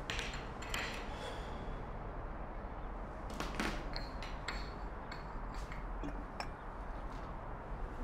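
Ceramic cups and saucers clinking: a couple of light clinks at the start, then a quick cluster of clinks and taps, some ringing briefly, from about three and a half to six seconds in, over a quiet room hiss.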